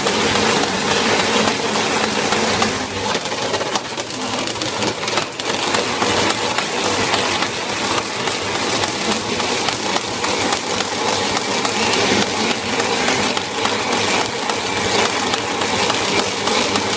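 Siat L33 flexographic tape printing machine running, a steady, dense mechanical clatter.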